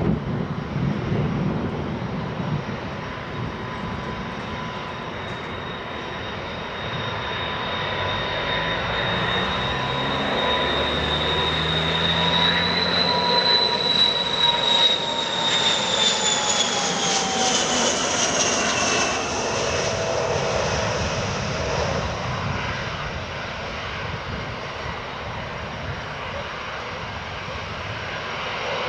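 An airliner's engines passing close by. A steady high whine holds, then drops in pitch as the aircraft goes past, and the overall noise swells and then eases off.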